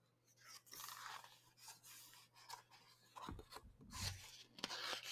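Faint paper rustling and crinkling as a picture book's page is turned by hand, in two spells: briefly about half a second in, then more busily from about three seconds on.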